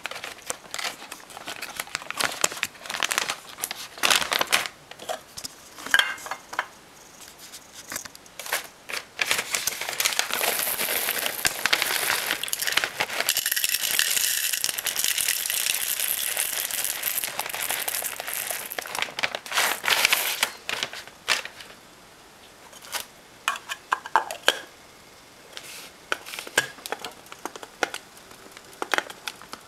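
Crinkling of a coffee bag and the rattle of beans being handled, then an electric blade coffee grinder running steadily for about ten seconds, grinding the beans. After it stops there are scattered taps and clicks.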